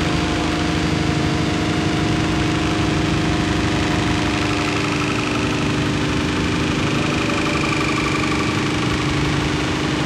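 Harsh noise music: a loud, steady wall of distorted noise over a held low drone and a rumbling, engine-like churn. A higher held tone drops out about halfway, and faint higher tones come in near the end.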